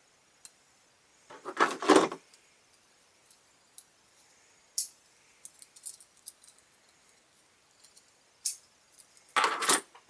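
Small Sheffield stainless-steel multi-tools and folding pocket knives clinking and clattering as they are handled, folded shut and set down on a hard tabletop. There is a loud clatter about one and a half seconds in and another near the end, with light single clicks between.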